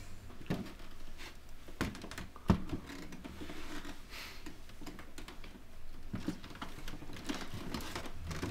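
Footsteps and small knocks and clicks as people come in through a front door into a small room, with a dull thunk about two and a half seconds in.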